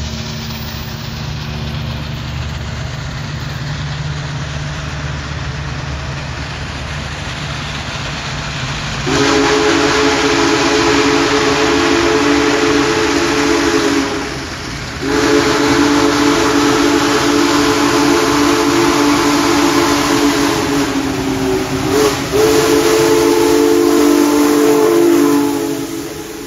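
Union Pacific Big Boy 4014 steam locomotive blowing its chime whistle in long blasts as it approaches: the first begins about nine seconds in, then after a short pause a longer one, broken by a brief gap, runs on until near the end. Before the whistle there is a low rumble of the oncoming locomotive.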